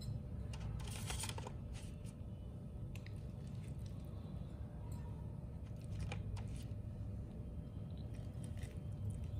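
A spoon scooping aloo chaat into a thin disposable plastic bowl: scattered clicks and scrapes of spoon and food on the plastic, with a short stretch of plastic crinkling about a second in. A faint low hum runs underneath.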